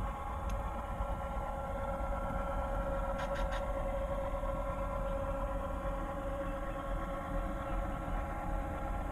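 An HO scale model F7 diesel locomotive's Soundtraxx DCC sound decoder playing a steady diesel engine drone as the model runs along the track. There is a quick run of three faint clicks about three seconds in.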